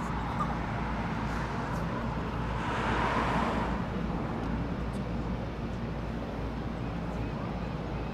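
An engine running steadily, with a rush of noise that swells and fades about three seconds in.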